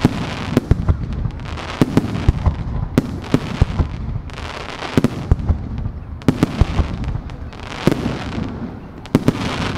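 Aerial firework shells bursting overhead in quick succession: more than a dozen sharp booms at irregular intervals of half a second to a second, each ringing on briefly after the bang.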